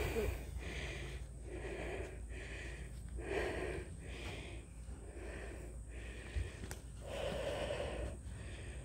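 A person breathing hard, one noisy breath roughly every second, with a longer breath near the end, over a low steady rumble.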